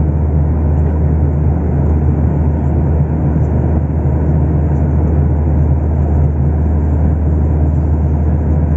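Steady low drone of an airliner's cabin in flight: engine and airflow noise heard from inside the plane, even throughout.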